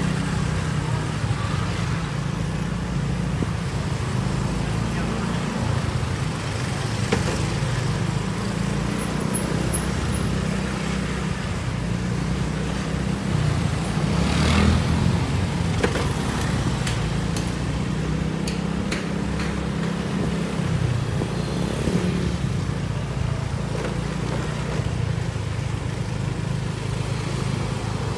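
Street traffic: motor scooters and cars running past at low speed, a steady engine hum that swells as one passes close about halfway through.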